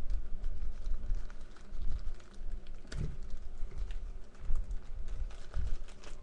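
Plastic screen-protector packet being poked open and handled: irregular crinkling and clicking, with low thuds of handling.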